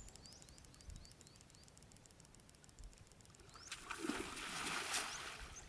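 A cast net thrown while wading in a shallow pond: a splash and swish of water starting about three and a half seconds in and lasting about a second and a half, over a quiet background of faint high chirping.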